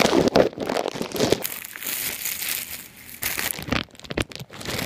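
Packaging crinkling and rustling as it is handled and pulled open, with irregular sharp crackles.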